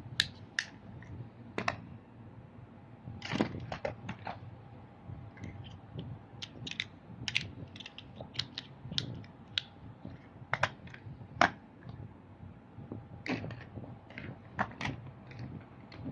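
Small plastic toy trucks being handled and played with: irregular clicks, taps and clacks of plastic parts, with a few louder knocks.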